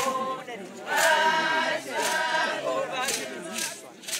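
A group of women singing a traditional song together, unaccompanied, with the voices dropping away briefly near the end.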